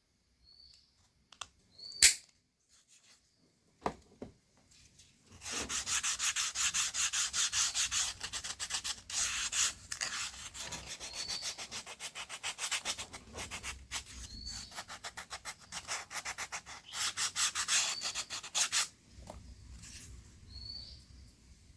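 Quick back-and-forth rubbing strokes, like sanding or scraping, about six a second, starting about five seconds in and stopping a couple of seconds before the end. A sharp click about two seconds in is the loudest single sound.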